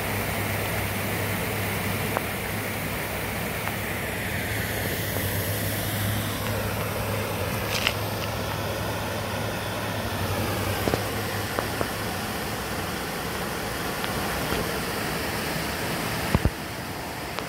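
A steady low mechanical hum under an even hiss, with a few faint clicks scattered through.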